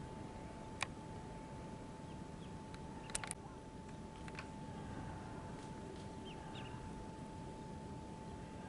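Faint, scattered peeps of mallard ducklings over a low background hiss and a thin steady whine, with a sharp click about a second in and a quick pair of clicks about three seconds in.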